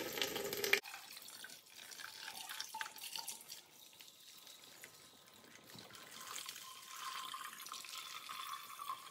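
Engine coolant draining from the cooling system of a Yamaha Grizzly 700 ATV into a container held underneath, with the radiator cap cracked open. A louder pour drops off abruptly about a second in, leaving a faint trickle with a faint tone that slowly rises.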